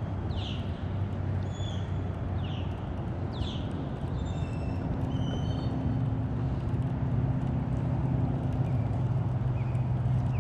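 A steady low motor hum that shifts up slightly in pitch about four seconds in. Over it, birds call: short downward-sweeping chirps about once a second at first, then a run of short whistled notes.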